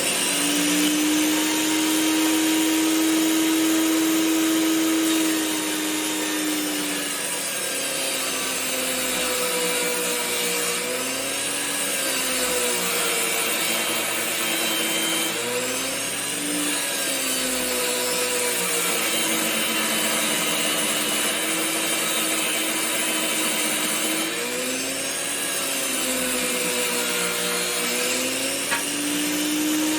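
Table saw ripping a long hardwood board lengthwise. The motor runs at a steady pitch at first, then sags and wavers as the blade takes the cut. It picks up speed again briefly in the middle and once more near the end.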